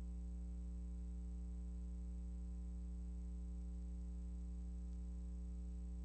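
Steady electrical hum, low and unchanging, with a ladder of higher overtones and a thin high whine above it; no other sound.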